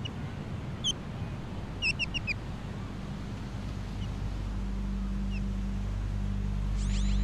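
Outdoor soundtrack ambience: a low rumbling bed with a few short bird calls, one about a second in and a quick run of four about two seconds in. A low steady musical drone swells in from about halfway, and a high ringing shimmer sounds near the end.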